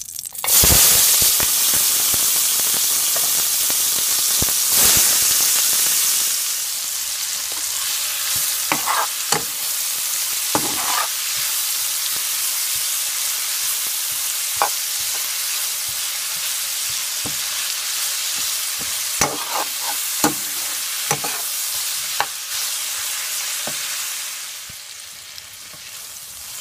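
Sliced onions, tomatoes and scotch bonnet pepper hitting hot oil in a pot with a loud sizzle about half a second in, then frying steadily. A metal spoon stirs them, scraping and knocking against the pot now and then. The sizzle eases off near the end.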